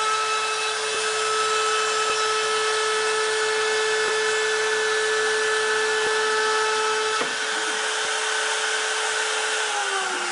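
Shapeoko CNC router's spindle running with a steady high whine as it cuts a window out of plywood. Near the end part of the pitch slides downward.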